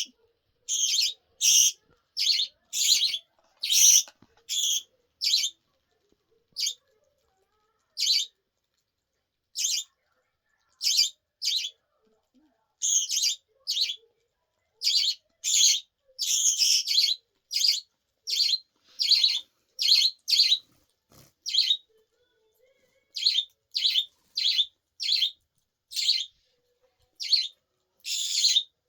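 Pet budgerigar chirping: many short, high-pitched chirps in irregular runs, some close together and some with pauses of a second or two.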